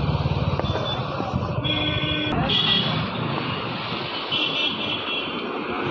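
Street traffic with a motorcycle's single-cylinder engine running at first, then short pitched horn beeps over steady traffic noise, with high beeping tones twice more after a sudden cut.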